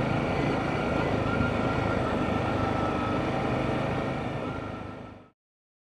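Dual-sport motorcycle engine running steadily under way on a gravel track, with road and wind noise; it fades out quickly about five seconds in.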